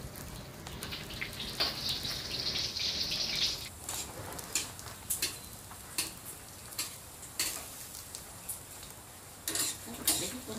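Rain on a corrugated tin roof: a steady hiss with scattered sharp ticks and taps.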